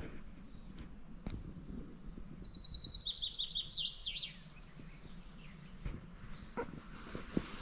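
A small songbird sings one song of about two seconds, a quick run of high notes stepping down in pitch, beginning about two seconds in. A few faint knocks sound around it.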